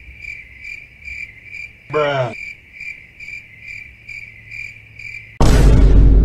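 Cricket-chirping sound effect: a steady run of high chirps, about three a second, with a short pitched blip about two seconds in. Near the end a loud, bass-heavy burst of music cuts in over it.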